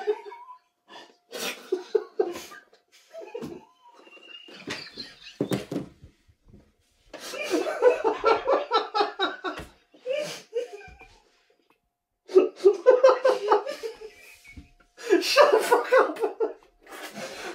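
A man laughing hard, in three long bouts of rapid pulsed laughter in the second half, with breaths and small scattered sounds in the quieter stretches before.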